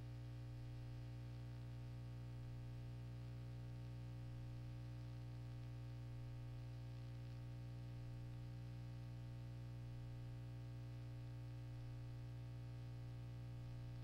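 Steady low electrical hum with a buzz of many even overtones, unchanging throughout.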